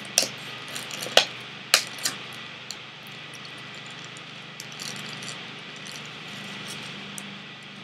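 Small hard objects being handled: a few sharp clicks and light clinks in the first two seconds, then scattered faint ticks, over a steady low hum.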